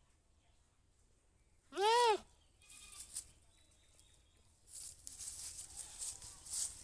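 A goat bleats once, about two seconds in: a short, loud call that rises and falls in pitch. From about five seconds on there is a scratchy rattling noise.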